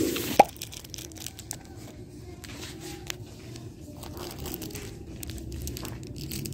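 Small plastic bags of beads and charms crinkling and rustling as they are handled, with scattered light clicks and one sharp click about half a second in.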